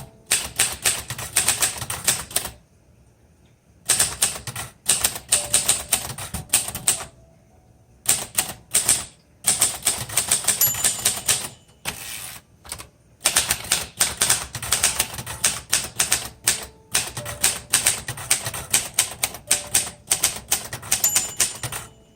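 Manual typewriter keys striking in quick runs on a 1956 Royal Quiet De Luxe, with brief pauses between bursts about 3, 7 and 12 seconds in.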